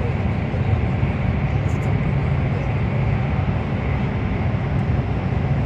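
Steady running noise inside a passenger car of a CRH1A-A high-speed train travelling at speed: a constant low rumble with a hiss above it.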